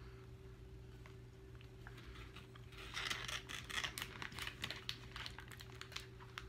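Close crackling and rustling for about three seconds, starting roughly three seconds in, from handling and breaking the chocolate-dipped roll cake, over a low steady hum.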